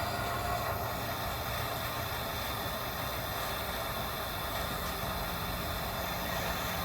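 Gas torch flame burning steadily with an even hiss and rumble while it heats a rusted bolt.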